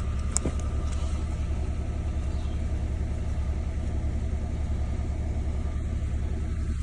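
Peugeot 107 engine idling, a steady low rumble with a fine even pulse. The engine has a cylinder 2 misfire, caused by a failing ignition coil pack. A single click sounds about half a second in.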